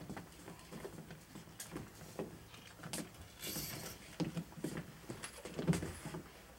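Shuffling footsteps and light knocks on a stage floor, with the rustle and small clicks of handbags being picked up and slung over shoulders. There is a brief rustling hiss about three and a half seconds in, and the loudest knock comes near the end.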